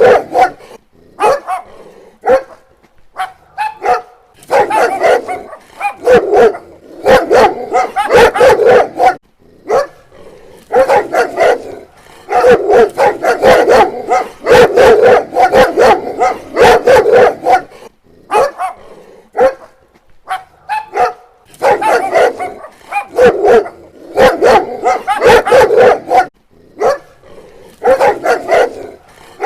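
Dog barking in rapid volleys of several barks each, with short pauses between volleys.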